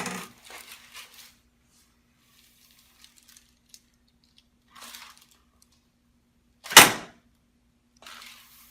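A chiropractic drop table's drop-piece falling with a single sharp clunk a little over two-thirds of the way through, as the left-side TMJ adjustment is thrust into the table. Faint rustling of the patient being repositioned comes before it.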